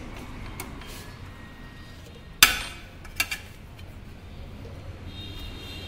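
A sharp knock with a brief ring about two and a half seconds in, followed by two lighter clicks, over low steady background noise.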